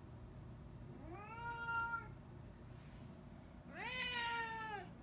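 Domestic cat meowing twice, the second meow louder and longer, each rising at the start and falling off at the end: a cat begging to be let outside.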